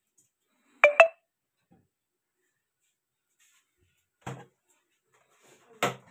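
Sharp knocks from handling snake-catching gear: two quick, loud knocks with a brief ringing tone about a second in, then duller thumps near the end.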